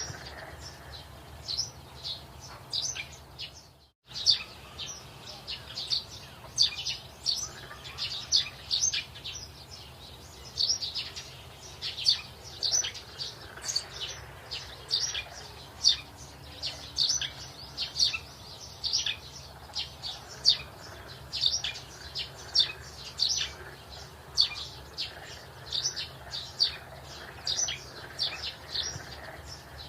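Small birds chirping: many short, high chirps in quick, irregular succession over a low steady background hum, with a brief cut-out about four seconds in.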